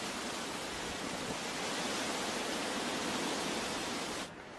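Steady hiss of falling water, which cuts off abruptly near the end.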